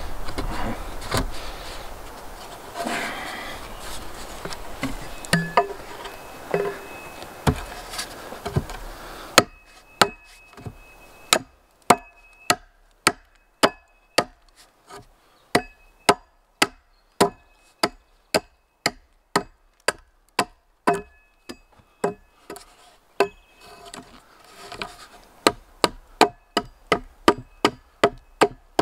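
Repeated knocking blows on wood as a peeled log is driven down into a notch cut in the top of an upright post. There are scattered knocks at first, then a steady beat of about one and a half blows a second, quickening near the end.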